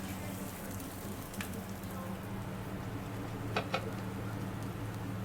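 Potato pancake frying in oil in a pan, a steady sizzle, with a low steady hum under it and a few light clicks, a pair of them about three and a half seconds in.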